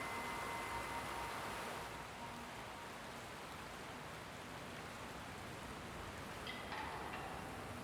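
Steady, even hiss like rain. Chime-like tones ring out and fade over the first couple of seconds, and a brief cluster of ringing tones sounds near the end.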